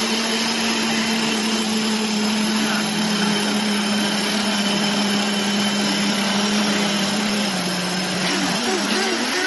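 Radio-controlled model boat motor whining at a steady pitch over a constant rushing hiss. Near the end the pitch dips slightly, then wavers up and down as the throttle changes.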